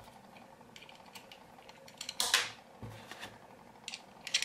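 Quiet small clicks and ticks of a hand screwdriver snugging down a handle screw on a Zero Tolerance 0560 folding knife, with small metal parts being handled. There is a brief louder scrape a little after two seconds in, and a quick run of clicks near the end.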